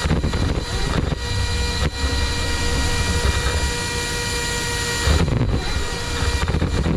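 Brushless-motor RC car running over rough ground, heard on its onboard microphone: a rough rumble with wind noise and a steady high-pitched whine that drops out briefly twice.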